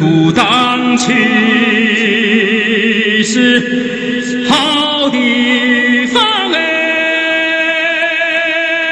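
Music: a solo singing voice holding long notes with a slight vibrato, sliding up into each new note.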